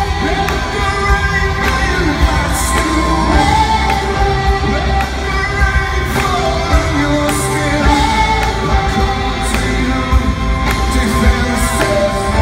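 Live rock band performing with a male lead singer, vocals over drums and keyboards in an arena.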